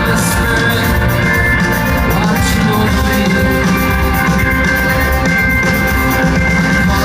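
Live rock band playing loudly: sustained guitar and keyboard tones over a steady drum beat with cymbal crashes, as heard on a concert audience recording.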